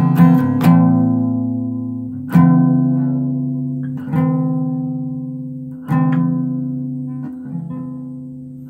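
Guitar playing the end of a song: a couple of quick strums, then single chords struck about every two seconds and each left to ring out and fade.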